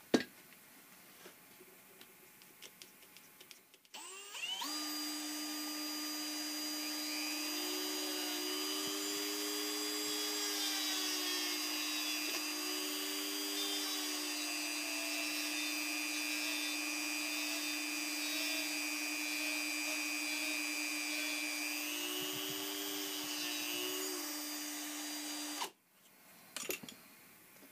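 Cordless drill motor running steadily at speed, spinning a rivet gun nose while a polishing bob is pressed against it, with a higher squeal that wavers up and down over the motor whine. The drill starts about four seconds in and stops near the end, followed by a few light clicks.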